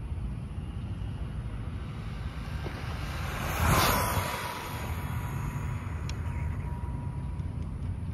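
Electric ECX Torment RC truck, running on a 2S LiPo, passes close by at speed about three and a half seconds in: its noise swells and fades within about a second, leaving a thin whine for a few seconds after. Wind rumbles on the microphone underneath.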